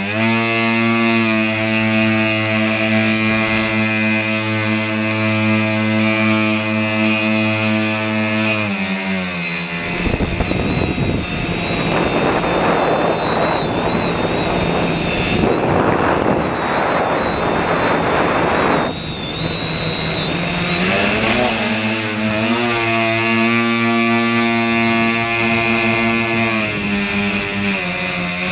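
Electric motors and propellers of a small radio-controlled aircraft carrying the camera: a steady buzzing hum with a high whine above it. About nine seconds in the pitch drops and a rushing noise takes over for several seconds, then the pitch climbs back up around twenty-one seconds in.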